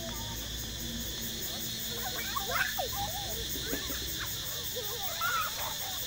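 Young children calling and squealing at play, mostly from about two seconds in, over a steady high drone of insects.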